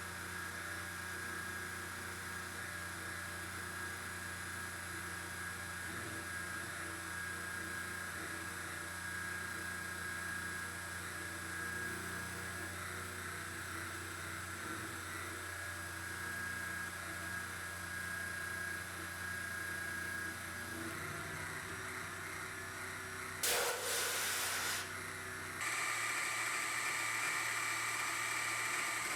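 Home-built CNC milling machine running: a steady motor whine and hum with several held tones. About 23 seconds in there is a short, louder noisy burst, after which a higher-pitched whine sets in.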